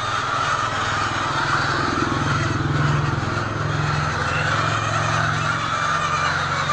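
A flock of hens clucking and chattering over a steady mechanical drone.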